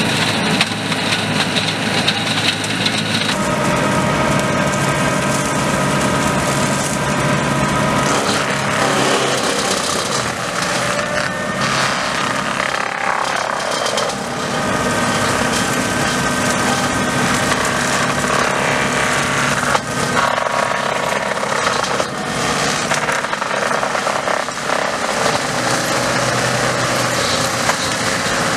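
Tractor-mounted Kraffter forestry mulcher running off the tractor's drive, its rotor grinding through brush, branches and soil over the steady drone of the tractor engine. The pitch of the running machinery steps up or down several times.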